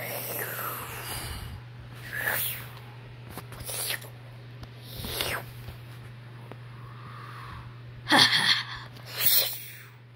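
A child's mouth-made fight sound effects: about six breathy, hissing bursts for punches and hits, spaced a second or two apart, one about eight seconds in with a voiced grunt.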